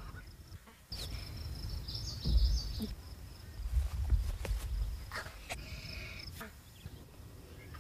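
Outdoor field ambience: a low rumble of wind on the microphone that swells twice, under a steady high chirping of insects, with a few faint clicks.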